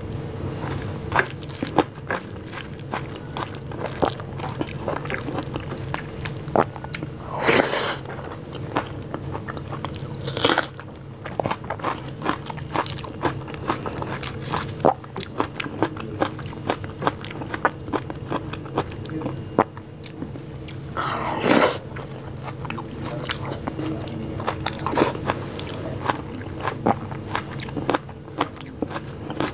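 Close-up mouth sounds of eating rice with dal and mashed bhorta by hand: steady chewing with many small moist clicks and smacks, and a few louder bites, the loudest about twenty-one seconds in. A faint steady hum runs underneath.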